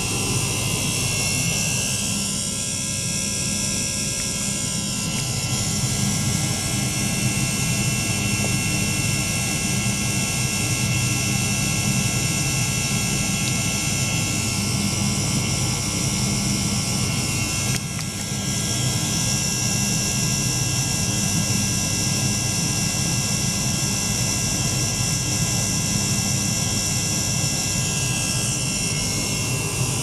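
Small DC-motor liquid-circulation pump running steadily, a continuous mechanical drone with a high whine. Now and then, faint high tones glide up and down over it.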